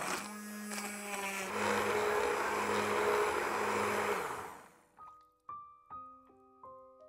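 Immersion blender pureeing chunky broccoli and pea soup in a saucepan: a steady motor hum, then a loud churning of the blade through the liquid about one and a half seconds in, until the motor winds down and stops about four seconds in. A few soft piano notes follow.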